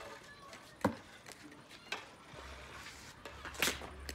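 Floorball play: sharp plastic clacks of sticks hitting the ball, three of them, about one, two and three and a half seconds in, the last the loudest.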